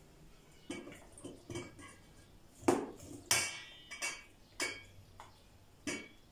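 A plate and spoon clinking and knocking against a stainless steel mixing bowl as sliced onions and green peppers are scraped into it. About seven separate clinks, irregularly spaced. One a little after three seconds in rings on briefly.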